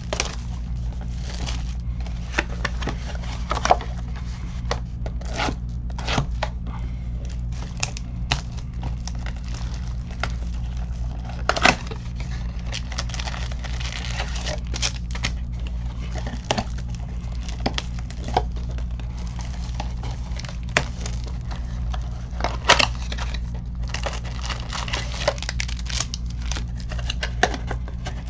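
Trading card packaging being torn open and crinkled by hand: a run of irregular rips, crackles and sharp clicks, a few louder than the rest, over a steady low hum.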